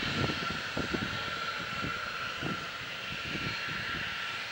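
Jet engines of a Boeing 737-800 (CFM56-7B turbofans) as the airliner rolls along the runway after landing: a steady high whine over hiss and an uneven low rumble, slowly fading.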